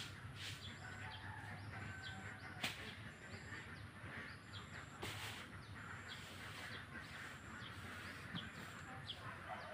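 Birds chirping faintly, with a short high call repeating about once a second. There is a sharp click about three seconds in and a brief rasp a couple of seconds later.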